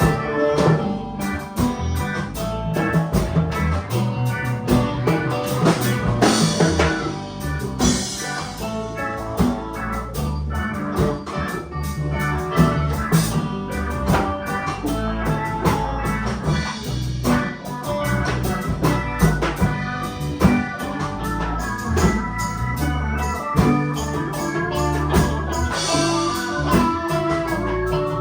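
Band playing a song: guitar over bass and drum kit, with cymbal crashes now and then.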